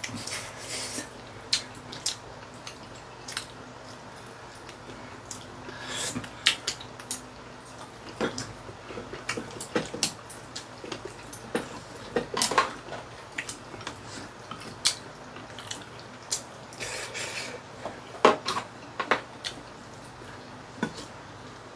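Chopsticks clicking and tapping against ceramic bowls at irregular intervals, with the chewing and mouth sounds of two people eating braised chicken and glass noodles.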